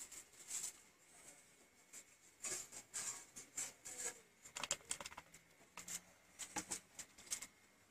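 Short scratchy strokes and light taps of paint being worked onto a painting board by hand, coming in quick clusters.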